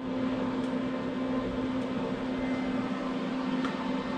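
A steady mechanical hum with a low drone and a few fainter steady tones above it over a noisy hiss, starting abruptly at the beginning.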